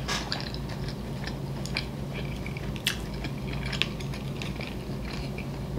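Close-miked chewing of food, with scattered small wet clicks from the mouth, over a steady low hum.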